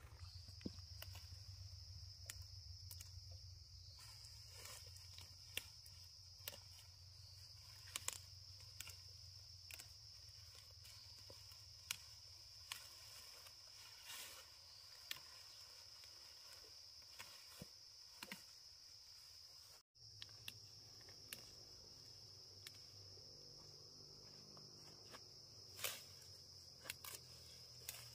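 Faint, steady, high-pitched chirring of insects, with scattered sharp clicks and light knocks over it.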